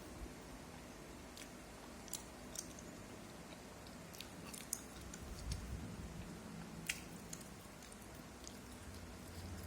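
A person chewing soft fish cake, with scattered small wet mouth clicks and smacks; one sharper click comes about seven seconds in.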